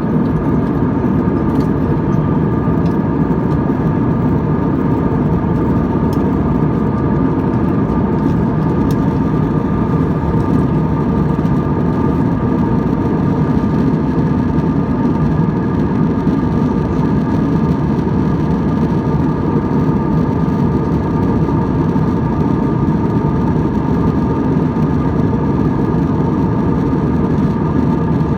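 Jet airliner's engines heard from inside the cabin in flight: a loud, steady drone with a few steady higher tones running over it.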